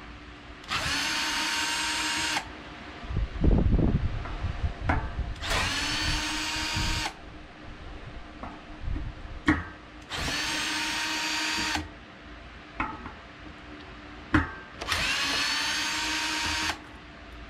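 Power drill with a T25 Torx bit running in four steady bursts of under two seconds each, backing out the Torx bolts that hold a mountain bike disc brake rotor to the hub. Sharp knocks and clatter come between the runs.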